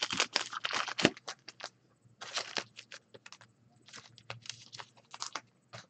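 Trading cards being handled and slid against one another: an irregular run of short, soft clicks and rustles in several clusters.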